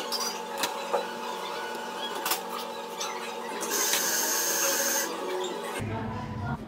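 Handling of sponge cake layers and a long cake knife on a wooden board with metal guide bars: a few light knocks and clicks, then a scraping hiss lasting over a second about four seconds in.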